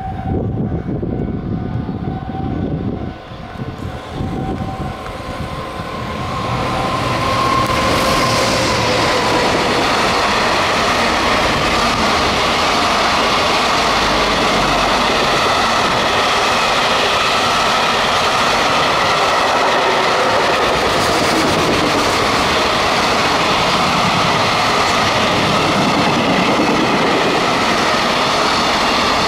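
JR Freight EF210 electric locomotive hauling a long container freight train past: the sound grows over the first several seconds as the locomotive comes through. About seven seconds in, the container wagons' wheels settle into a steady, loud rumbling clatter on the rails that lasts to the end.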